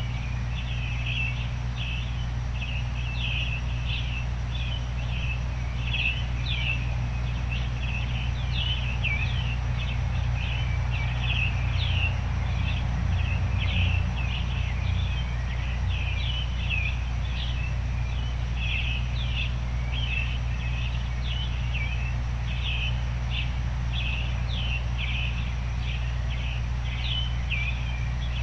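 A chorus of small songbirds chirping rapidly and without pause, over a steady low noise bed.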